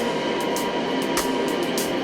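Background music, the kick drum dropping out and leaving a steady hissing texture with a few sharp ticks.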